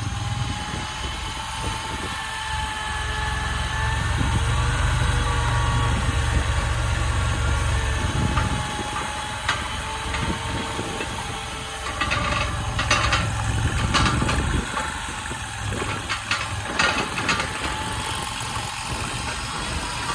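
AGT LRT23 stand-on mini skid steer's 739cc engine running under changing load, with a thin wavering whine over it. Several sharp metallic clanks and rattles come in the second half.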